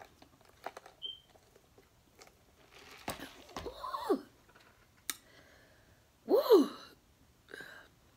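A woman's mouth sounds after a sip of Sprite: a few soft clicks and swallows, then two short wordless vocal reactions, each rising then falling in pitch, about four and six seconds in, the second the loudest. They are her reaction to the fizzy drink going down.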